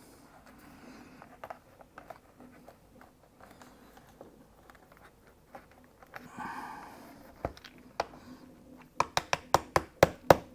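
Light clicking and handling of small parts and tools on a laptop being repaired, then a quick run of sharp light taps, about four a second, in the last second and a half.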